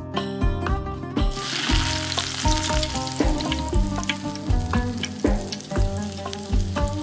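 Dried apricots boiling hard in their soaking water in a steel pan: a bubbling hiss that comes in about a second in. It sits under background music with a steady beat.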